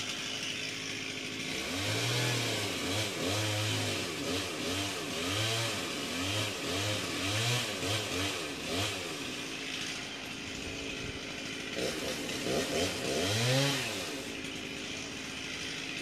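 Two-stroke chainsaw cutting high in a tree, its engine revving up and down over and over, about two rises a second, with a pause of a couple of seconds past the middle before it revs again.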